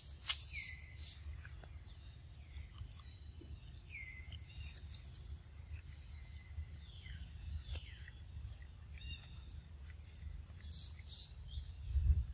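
Birds calling, with repeated short chirps, several sliding down in pitch and then holding, over a steady low rumble. There are a few faint clicks and a louder bump near the end.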